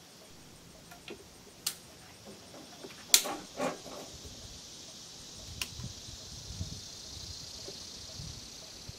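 A few sharp metallic clicks from a Lyman Ideal Sharps-style falling-block rifle being readied to fire, the loudest about three seconds in as the hammer is cocked. A steady high insect chirr runs in the background.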